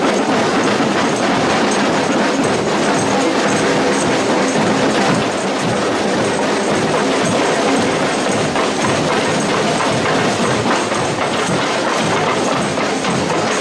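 Carnival parade percussion band drumming, a dense, steady rattle with no breaks.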